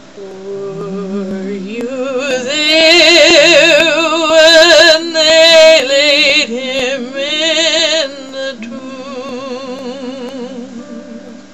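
A woman singing a slow spiritual solo, a long wordless held passage with wide vibrato that rises in pitch and swells loudest in the middle, then softens.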